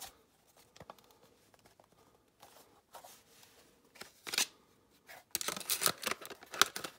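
Plastic handling sounds of a Casio fx-CG50 graphing calculator and its slide-on hard cover. Scattered light clicks and taps come first, then a busier run of plastic clicks and scrapes from about five seconds in as the calculator is turned over and worked open.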